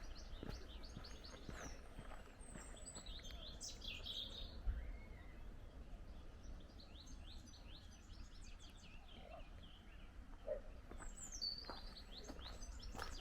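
Small birds chirping and singing in runs of quick high notes, three times, over a steady low rumble, with soft footsteps.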